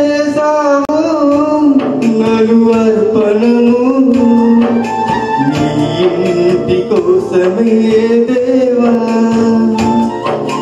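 Music of a Telugu Christian worship song between sung lines: a held, pitched melody over a steady drum beat.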